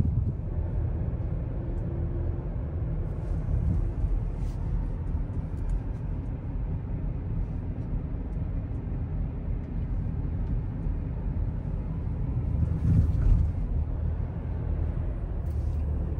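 Steady low rumble of a car driving, heard from inside the cabin: engine and tyre noise on the road, swelling slightly near the end.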